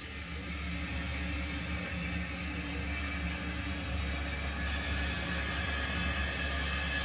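0 gauge model tank locomotive running slowly, a steady low hum and whir with a faint hiss above it.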